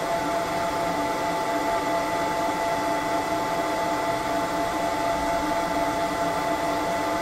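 F1 laser engraver running mid-pass while it engraves a metal pen: a steady fan-like whir with several steady humming tones.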